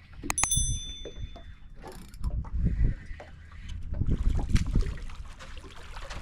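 A sharp metallic clink on a fishing boat, ringing out clearly for about a second, followed by irregular dull low knocks.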